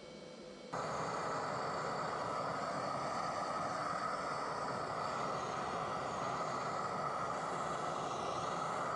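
MAP gas hand torch flame running with a steady rush, preheating a cracked cast-iron bracket. It cuts in suddenly under a second in, after a brief, quieter hiss from the TIG brazing arc.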